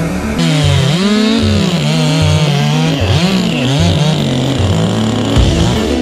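Stihl top-handle chainsaw, a two-stroke, revving up and down several times as it cuts into the trunk.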